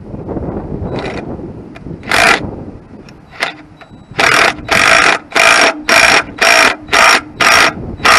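Hand tool worked in quick repeated strokes on tractor metalwork: one stroke about two seconds in, then a steady run of about eight equal strokes, roughly two a second, near the end.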